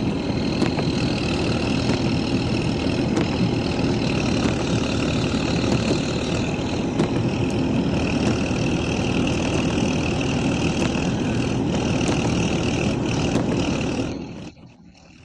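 Heavy vehicle engine running steadily, mostly a low rumble with a faint high whine on top. It cuts off sharply about fourteen seconds in.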